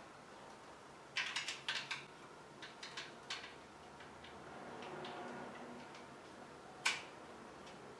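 Clicks and light knocks of the clay extruder's plastic pipe and fittings being handled as the ram is fitted onto the clay barrel: a quick cluster about a second in, a few more around three seconds, and one sharp click near the end.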